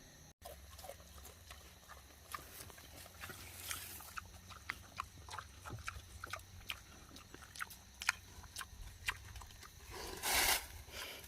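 A farm animal close by, making irregular soft clicks and crunches, with a short louder breathy noise about ten seconds in.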